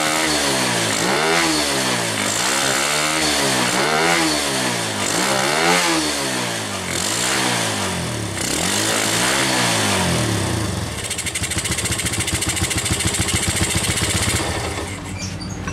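Yamaha Vega's air-cooled single-cylinder four-stroke engine, fitted with a PE 28 carburettor and standard exhaust, is revved in quick throttle blips, rising and falling about once a second, while its carburettor setting is checked. About ten seconds in, the blips stop and it settles to a steady idle.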